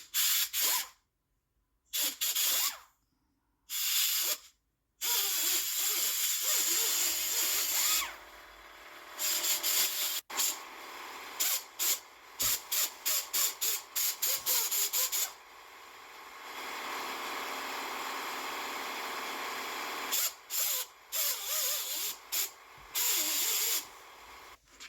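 A hissing cleaning tool worked in many short bursts, with a steadier stretch near the middle, as rust and debris are cleaned out of the bearing bore after the old front wheel bearing has been pressed out.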